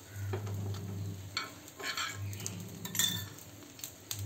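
Dosa frying in ghee on a cast-iron tawa: light sizzling with a few short scrapes and taps as it is handled on the pan.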